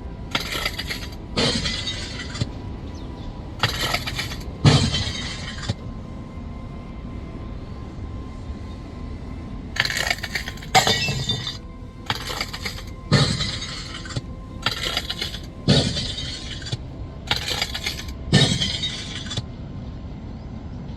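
Soundtrack music with pairs of short, bright crashing hits recurring every few seconds over a steady low bed.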